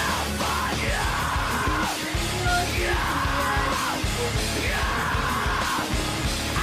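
Loud heavy rock music: a full band with a pounding low end and yelled vocals.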